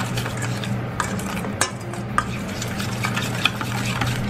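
A metal spoon stirring a thick marinade in a stainless steel bowl, scraping and clicking against the metal with a few sharper clinks, over a steady low hum.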